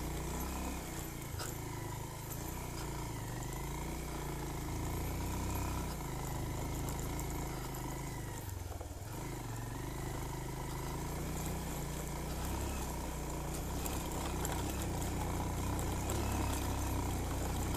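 Motorcycle engine running, its revs rising and falling steadily, with a dip about nine seconds in.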